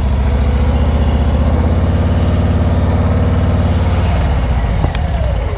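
Big touring motorcycle's engine held at a steady, preloaded rpm just above idle while the bike creeps along, its speed controlled with the rear brake rather than the throttle. About four seconds in the engine note drops and softens.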